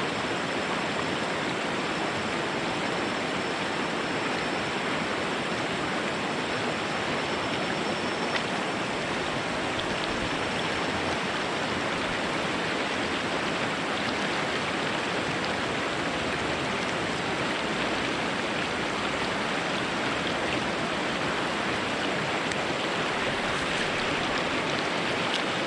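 Stream water rushing and splashing over rocks, a steady even flow, with a faint thin high tone held above it.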